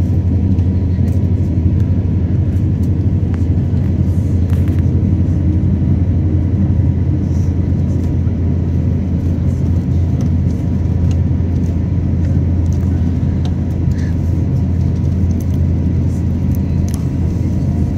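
Airbus A350-900 cabin noise while taxiing: a steady low rumble from its Rolls-Royce Trent XWB engines at taxi power and the aircraft rolling along the taxiway, with a faint steady tone and occasional light clicks.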